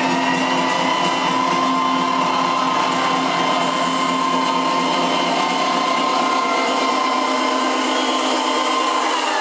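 House music from a club DJ set in a filtered breakdown: the kick and bass are cut out, leaving a buzzing, noisy synth layer under a steady high held tone. About three seconds in, more of the low end is filtered away.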